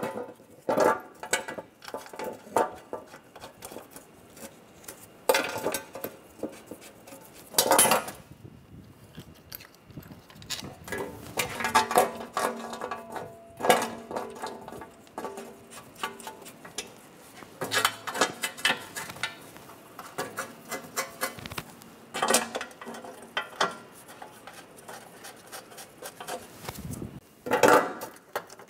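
Irregular metallic clinks, taps and rattles as a thin metal underbody shield is handled against the car's subframe and its bolts are started by hand, with a louder clatter of knocks near the end.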